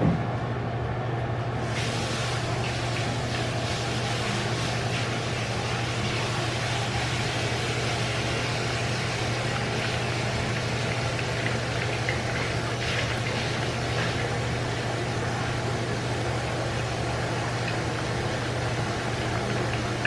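Steady machine hum with an even rushing noise that comes in about two seconds in and holds level.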